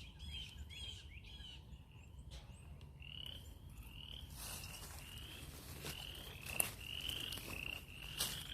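A chorus of frogs calling: short rising peeps repeated about twice a second, with fainter clicky chirps in the first two seconds.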